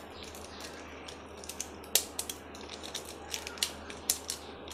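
Thin plastic bag crinkling as it is twisted tight and wound with a rubber band: a run of small crackles and clicks, with one sharper click about two seconds in.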